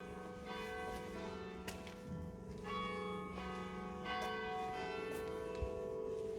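Church bell ringing, with strokes every second or two, each leaving a long ringing hum that carries on under the next stroke.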